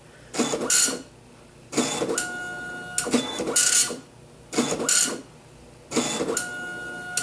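Apple ImageWriter II dot-matrix printer printing a graphic line by line: about five passes of the print head, each a buzzing rasp under a second long with a steady whine, separated by short pauses.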